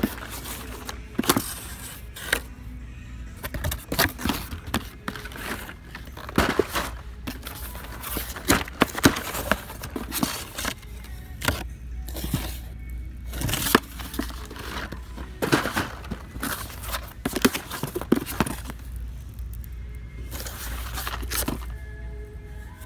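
Corrugated cardboard shipping case being handled: flaps pulled back and bent, with repeated short scrapes, rustles and knocks of cardboard. Music plays in the background over a low steady hum.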